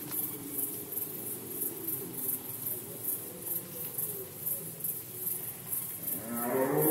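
Red deer stags roaring at a distance: faint, drawn-out calls whose pitch falls, over a high, rhythmic chirping of about three pulses a second. Near the end a louder, closer roar swells up.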